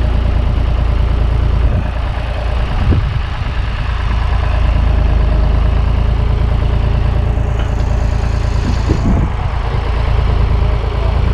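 Engine idling with a steady low rumble, with a couple of faint knocks about three and nine seconds in.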